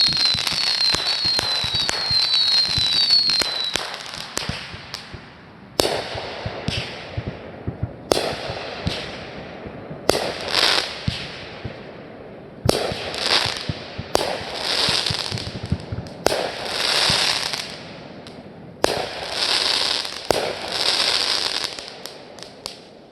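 Fireworks going off: a string of short falling whistles over dense crackling in the first few seconds, then a series of sharp bangs about every two seconds, each followed by a crackling hiss of sparks.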